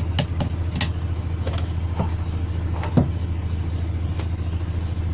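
Steady low hum of an engine running, with scattered light clicks and taps of parts being handled, and a sharper knock about three seconds in.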